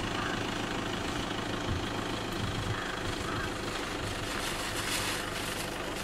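A motor vehicle's engine running steadily at idle, a constant low hum.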